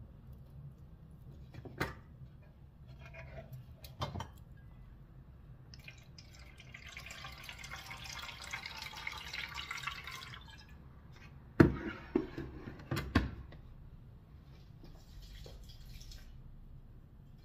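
Water pouring for about four seconds as the clear plastic water tank of a capsule coffee machine is filled. A cluster of sharp plastic clunks follows as it is handled and set back in place, with a couple of lighter knocks earlier.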